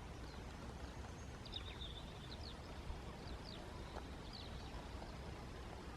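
Faint birds chirping: scattered short, high calls over low steady background noise.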